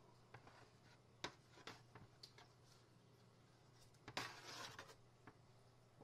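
Faint handling noises close to the microphone: a few light taps, then a brief rustle about four seconds in.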